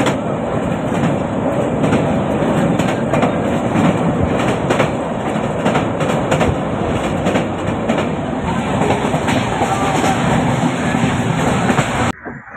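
Indian express train heard from an open coach window while running at speed over a river bridge: steady rumble of wheels on the track with repeated clacks over rail joints. Cuts off abruptly near the end.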